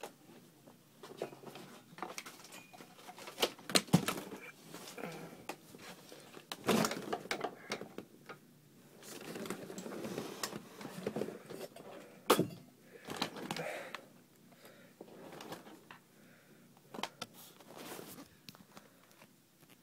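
Irregular knocks, clicks and rustling from a person moving about close to the camera, bending over an office chair and handling the device. Two sharper knocks, about four seconds in and near the middle, are the loudest.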